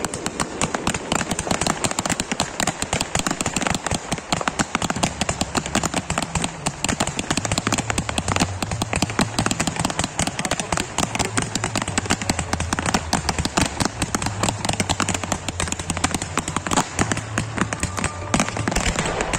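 Fireworks barrage going off in a dense, unbroken stream of bangs and crackles, many per second without a pause.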